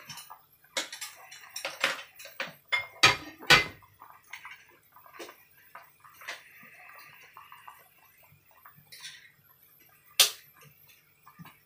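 A saucepan of tom yum fish soup boiling vigorously on a gas stove, bubbling and hissing softly. A few sharp knocks or clinks cut in, the loudest pair about three seconds in and another near the end.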